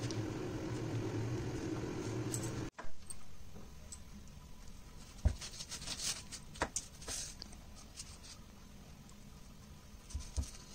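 A kitchen knife cuts through rolled jam pastry and taps on a wooden cutting board: a handful of sharp taps from about five seconds in, and two more near the end. Before that, hands rub and roll the pastry against baking paper over a steady low hum.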